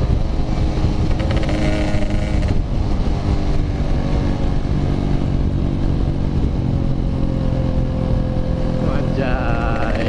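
Yamaha RX-King two-stroke single-cylinder motorcycle engine running under way through a "packing power" aftermarket exhaust, its pitch fairly steady. Near the end a higher tone bends up and down over it.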